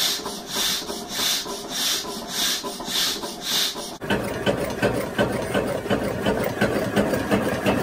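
Homemade hot-air Stirling engines running. First comes a rasping whoosh that repeats evenly just under twice a second. About halfway through it cuts to a second, larger engine with a denser, rapid clatter.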